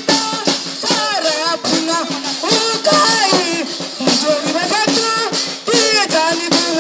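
Singing of a Garhwali folk song for the Aanchhari dance, with gliding, ornamented vocal lines over a held low note, accompanied by quick rattling percussion strokes.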